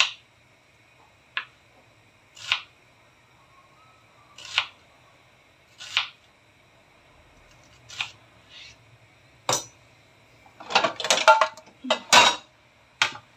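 Kitchen knife slicing through a red onion and tapping down on a plastic cutting board, one slow cut every second or two, then a cluster of louder knocks and clatter near the end.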